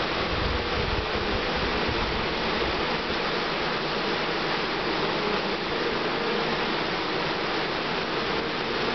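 Honeybee swarm buzzing: a dense, steady hum of many bees close by, with a brief low rumble in the first two seconds.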